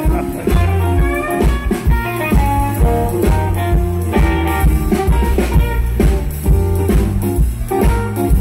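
Live electric blues band playing an instrumental passage: single-note electric guitar lead over electric bass and a drum kit.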